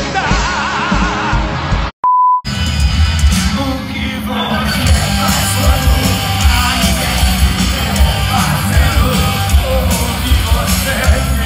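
Live rock band music with a singer. About two seconds in it breaks for a short steady beep, then resumes as live concert sound heard from within the crowd, with heavy booming bass and the audience yelling and singing along.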